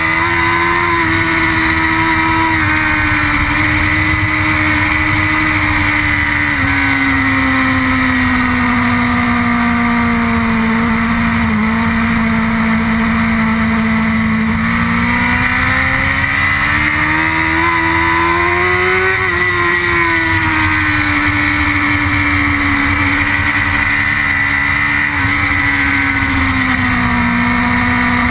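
BMW S1000RR inline-four superbike engine at race pace, heard onboard over rushing wind. Its pitch falls and holds through the bends and climbs for a few seconds about two-thirds of the way in before dropping again.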